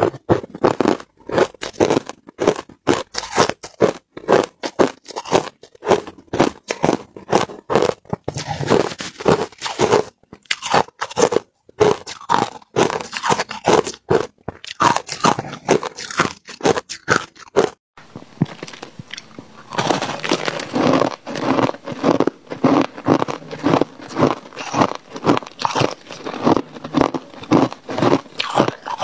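Crushed ice being chewed and crunched between the teeth, close to the microphone: a fast run of crisp crunches, several a second. After a short break about eighteen seconds in, the crunching goes on fuller and denser.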